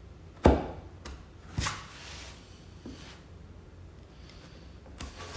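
Two sharp knocks of hand tools on wood, about a second apart, the first the louder, with a few faint taps after.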